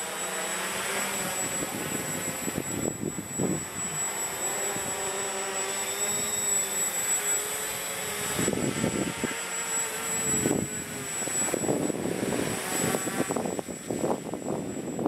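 Walkera Hoten-X quadcopter's electric motors and propellers buzzing as it flies close by, the pitch drifting up and down as the motors change speed. Irregular low rumbles come through, more in the second half.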